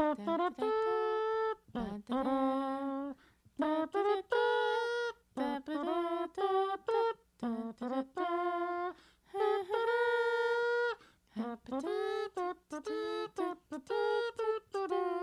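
A person humming a melody a cappella: a string of held notes broken by short pauses.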